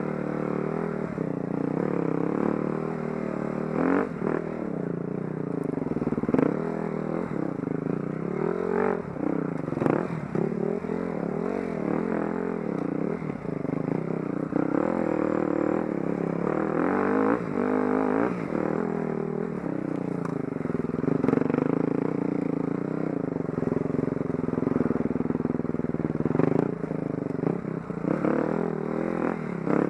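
Enduro dirt bike engine revving up and down as it rides a rough trail, with scattered knocks and rattles over the bumps.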